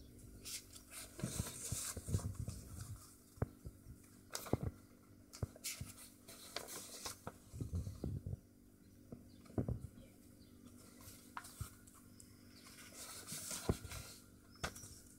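Paperback book being leafed through by hand: paper pages rustling as they are turned, with scattered soft taps and brushes of fingers on the paper. Rustling comes in short bursts, strongest about a second in and again near the end.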